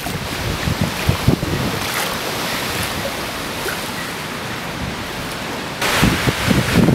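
Hurricane wind rushing steadily, then gusting and buffeting the microphone about six seconds in.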